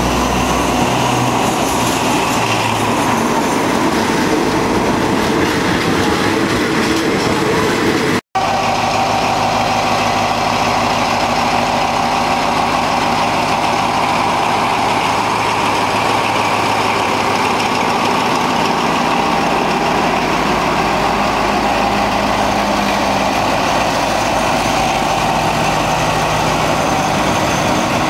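Alstom diesel-electric locomotive running loud and steady as it rolls alongside the platform, with the rumble of the train on the rails. The sound cuts out for an instant about eight seconds in.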